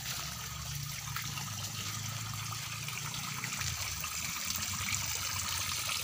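Water pouring steadily from a PVC drain pipe and trickling along a muddy ditch, growing slightly louder toward the end.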